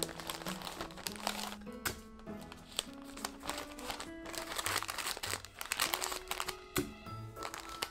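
Sandwich wrapping paper crinkling and rustling as it is folded and twisted around a sandwich, over light background music.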